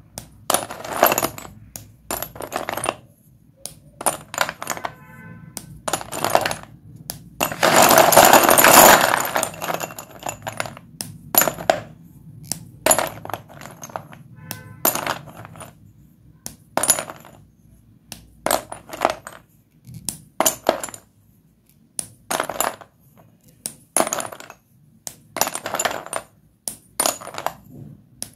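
White dustless chalk being broken and crumbled: a run of short, dry crunches, roughly one every second, with a longer, louder grinding crunch about eight seconds in.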